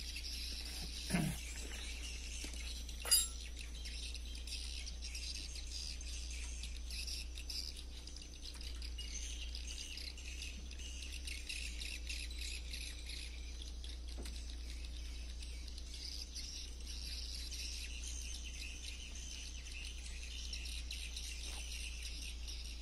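Steady high-pitched chorus of insects, over a low steady rumble, with a sharp click about three seconds in.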